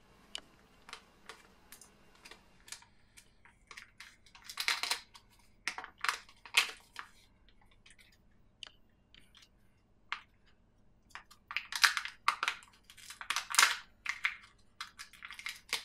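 Hard plastic clicking and rustling from hands handling and prying open a Kinder egg's plastic toy capsule: irregular small clicks throughout, louder clusters about a third of the way in and again near the end.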